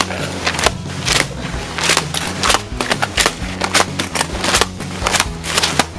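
A jammed metal hole punch being worked at to free paper packed tight in it: an uneven run of sharp clacks and scrapes, several a second.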